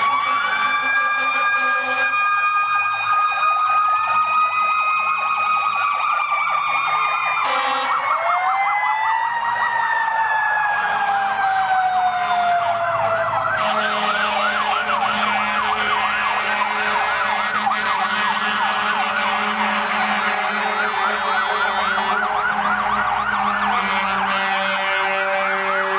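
Several fire trucks' sirens sounding at once, overlapping slow wails rising and falling at different pitches, with a fast yelp taking over about halfway through. Truck engines run beneath as the apparatus passes.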